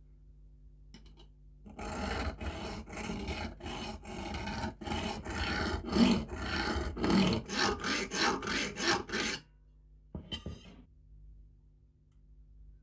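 A thin steel blade worked back and forth across the rusted steel locking ring of an M1891 Mosin-Nagant socket bayonet, metal scraping on rusty metal: about twenty strokes, quickening toward the end, then one short stroke a second later.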